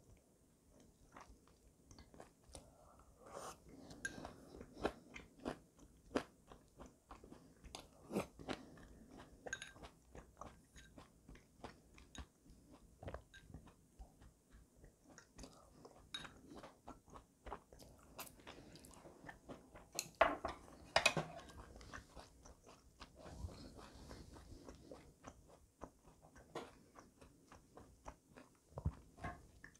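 Close-miked chewing and small wet mouth clicks of a person eating soft food: radish-greens soup lifted from a bowl with chopsticks. A couple of louder bites come about twenty seconds in.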